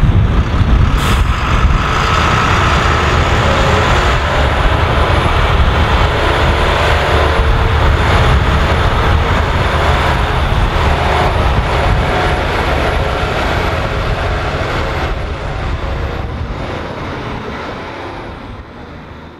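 Heavy diesel engines of a Volvo A25E articulated hauler and a Volvo EC300DL excavator running steadily as the loaded hauler pulls away. The sound fades out over the last few seconds.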